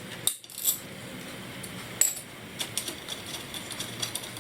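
Light metallic clinks and clicks of a socket wrench and loose steel bolts with washers being worked, as the 14mm swing arm bolts of a Honda ADV150 scooter come out. Three sharper clinks stand out before a run of quicker small clicks in the second half.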